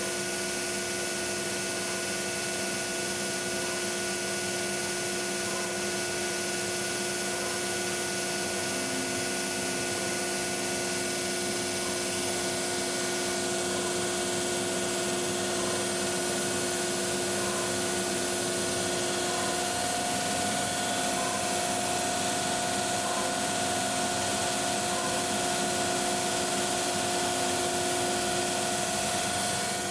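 ShopBot PRSalpha CNC router drilling shelf holes one after another in a plywood sheet with a 5 mm drill in its tool-changer spindle, about three seconds a hole, with dust-collection suction at the brush boot. A steady whine of several held tones over a rush of noise; the mix of tones shifts a little about two-thirds of the way through.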